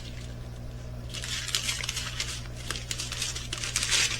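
Small plastic bags of diamond-painting drills crinkling as they are handled, starting about a second in, over a low steady hum.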